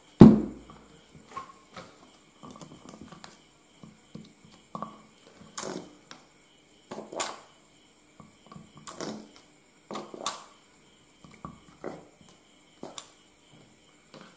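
Irregular light clicks and taps of a dropper and a plastic cup being handled at the open filler holes of a motorcycle battery while excess water is drawn off its cells. There is a louder thump just after the start.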